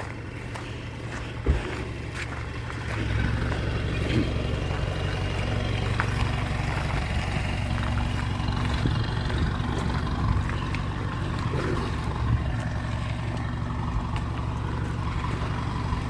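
A motor vehicle's engine running steadily, louder from about three seconds in, with a single sharp knock about a second and a half in.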